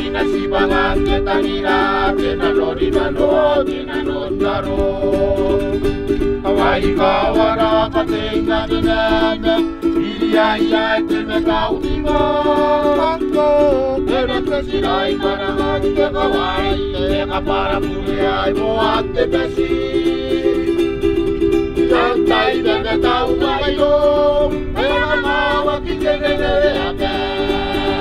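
Kiribati islanders singing a song to a strummed ukulele, the chords kept up steadily under the voices.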